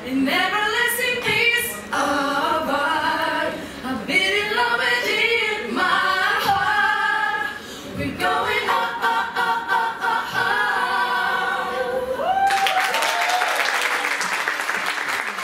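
Several voices singing unaccompanied in close harmony, a short a cappella song. About twelve seconds in the singing ends and applause breaks out.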